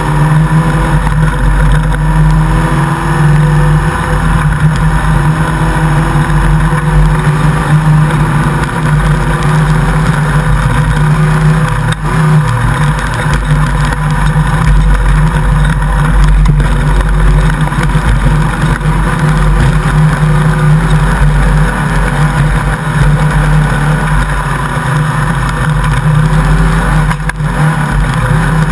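Off-road race car's engine running loud and hard at sustained high revs, its pitch wavering slightly with the throttle.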